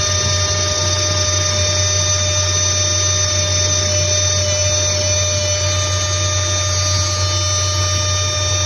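Small electric rotary tool with a tiny wheel brush running at a constant speed, a steady whine over a low hum, while a gold ornament is held against the brush to polish it.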